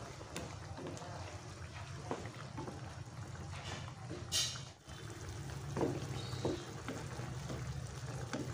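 Wooden spatula stirring and turning chicken pieces in bubbling turmeric sauce in a pan, with a few light knocks. A brief hiss comes about four and a half seconds in, over a steady low hum.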